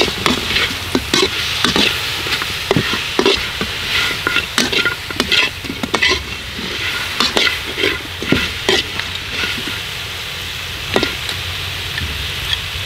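Metal spatula scraping and clinking against a wok as geckos with chilies and herbs are stir-fried, over a steady sizzle of hot oil. The strokes come irregularly, easing off for a moment about ten seconds in.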